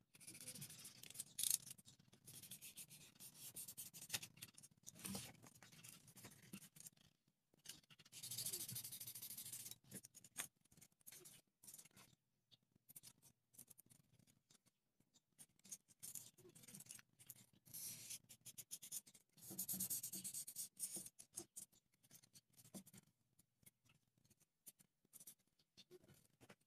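Utility knife cutting and scraping white styrofoam from an ice chest, in several scratchy passes a few seconds apart, with small handling clicks between them.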